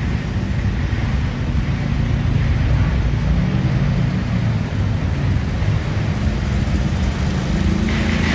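Engines of a slow procession of pickup trucks and rescue vans rolling past at walking pace: a steady low rumble.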